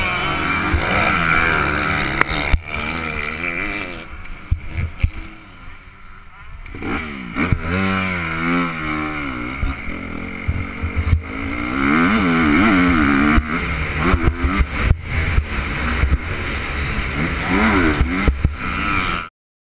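Motocross dirt bike engine heard from on the bike, revving up and down as it is ridden round the track, the pitch climbing and dropping with throttle and gear changes. It drops low for a few seconds about a quarter of the way in, picks up again, and cuts off abruptly near the end.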